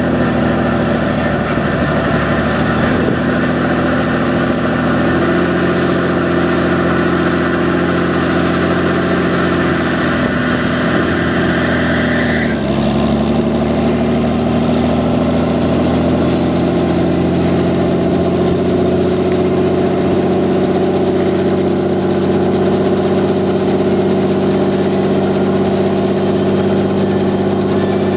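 Robinson R44 helicopter running up on the ground, its Lycoming six-cylinder piston engine running steadily as the two-blade main rotor spins faster. A high whine cuts off about halfway through, with a brief dip in engine pitch, and then the engine note climbs slowly.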